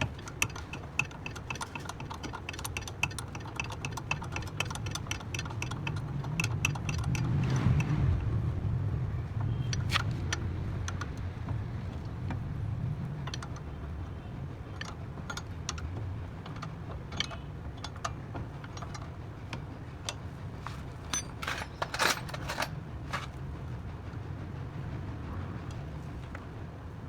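Metal hand tools working on car parts: a fast, even run of metallic clicks for about the first eight seconds, then scattered clinks and knocks, a cluster of them near the end. A steady low hum runs underneath.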